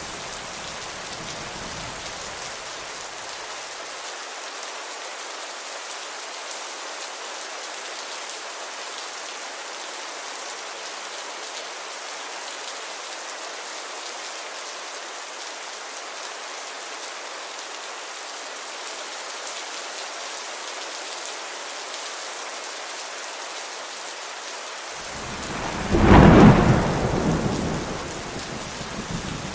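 Steady rainfall, an even hiss throughout. A low thunder rumble dies away in the first couple of seconds, and a loud roll of thunder builds and fades over about three seconds near the end.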